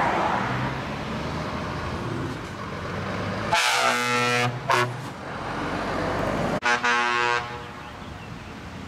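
Truck air horn sounding as a tractor unit drives past: a blast about three and a half seconds in, broken by a short stutter, then a second shorter blast about two seconds later, over the engine and tyre noise of the passing vehicles.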